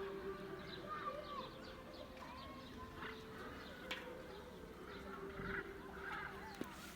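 Birds calling and chirping in many short, overlapping calls, over a steady low hum.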